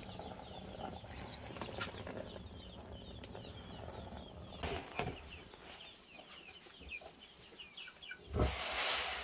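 Birds chirping rapidly and continuously, with a few sharp clicks scattered through. About eight seconds in, a loud rushing noise begins with a low thump.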